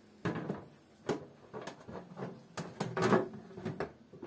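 Clear plastic front door of a Kitfort food dehydrator being handled and fitted shut: a series of light plastic knocks and clatters.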